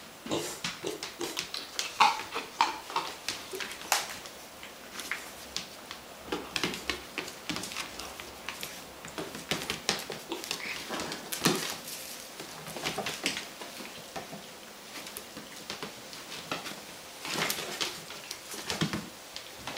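A Boston Terrier puppy and a piglet scuffling and playing on a hard floor: a rapid, irregular run of small taps and clicks from their feet, with a couple of short high-pitched squeaks about two seconds in.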